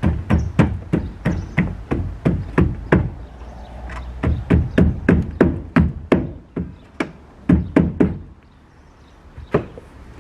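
Rapid, even knocking, about three strikes a second, in two runs with a short pause between them and a couple of lone knocks near the end.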